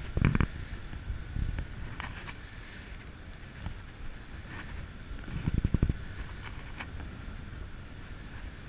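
Wind rushing over the microphone during an engine-off paramotor glide, with no motor running. Heavy buffets of wind hit the mic just after the start and again about five and a half seconds in.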